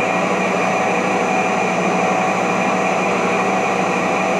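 Welding positioner's 7 HP inverter-driven rotation motor and gear reducers turning the table at top speed, a steady mechanical hum with a constant whine of several tones.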